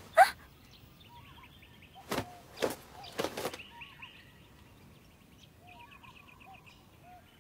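Birds chirping in the background, with a short sharp sound just after the start and a cluster of quick brushing, thudding sounds about two to three and a half seconds in as a person stumbles and is caught.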